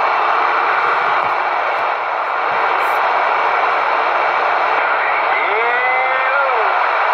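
CB radio receiver hissing with steady band static on an open channel. About five and a half seconds in, a brief warbling whistle of a distant signal rises and falls through the static.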